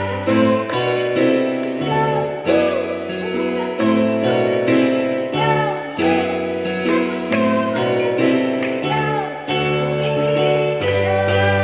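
A woman singing a worship song over an electronic keyboard playing sustained chords.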